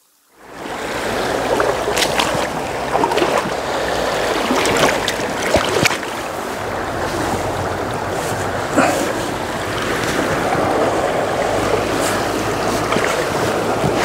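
Shallow, fast-running river rushing over rocks close to the microphone: a steady rush with frequent small splashes and clicks. It comes in suddenly just after the start.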